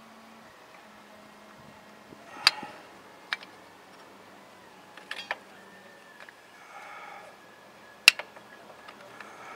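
Sharp, isolated clicks and knocks of drum brake parts and hand tools being handled during a brake shoe swap, five or so strikes spaced a second or more apart, with a short soft rustle in between and a faint steady hum underneath.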